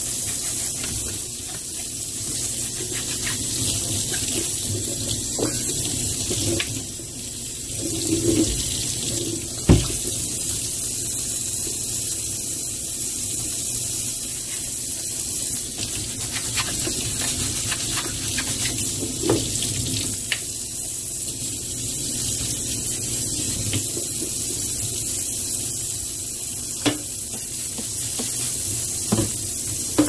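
Tap water running steadily into a stainless steel sink as a clear plastic vacuum dust bin is rinsed under it, with a few sharp knocks as the bin is handled.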